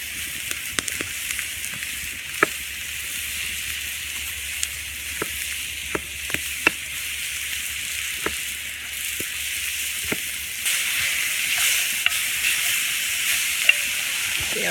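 Steady sizzling hiss of food cooking over a campfire, with scattered sharp clicks and pops. The sizzle grows a little louder about two-thirds of the way through.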